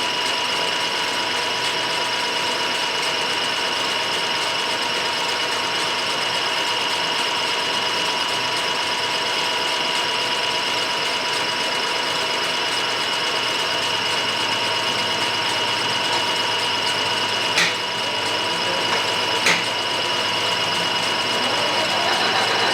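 Milling machine running steadily with a high, even whine from the spindle and drive. Two sharp clicks come near the end, about two seconds apart.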